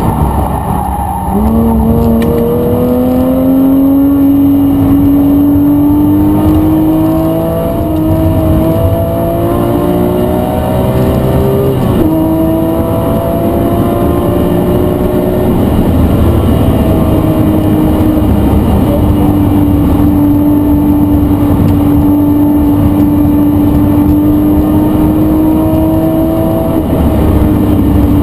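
Porsche 911 GT3 flat-six running hard while drifting on a wet track. The revs dip about a second in, climb slowly for about ten seconds, and drop suddenly around twelve seconds in. They then hold fairly steady and fall away near the end.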